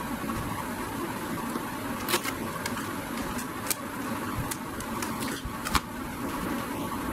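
A cardboard shipping box being handled on a stone step: a few sharp taps and scrapes, the loudest about six seconds in. Underneath runs a steady background rumble and hiss.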